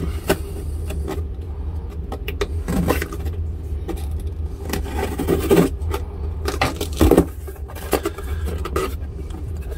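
Knife slitting the packing tape along the seam of a cardboard shipping box, then the cardboard flaps being pulled open, with scrapes, crackles and sharp clicks. A steady low hum runs underneath.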